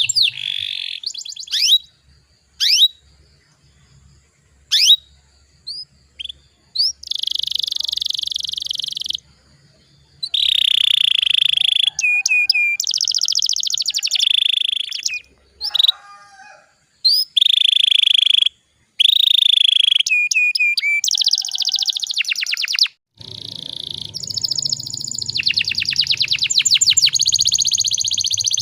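Domestic canary singing. At first it gives short, separate rising chirps with gaps between them. From about seven seconds in it moves to long, rapid rolls and trills, phrase after phrase with short pauses.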